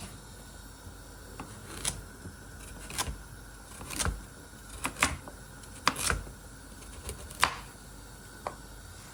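Kitchen knife chopping a peeled carrot on a cutting board: sharp knocks at an uneven pace, roughly one a second, some coming in quick pairs.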